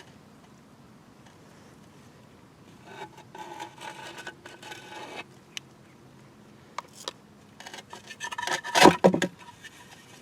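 Terra cotta clay pot scraping and grinding against a clay saucer as it is set down and shifted into place: one bout of scraping about three seconds in, a couple of light knocks, then a louder scrape near the end.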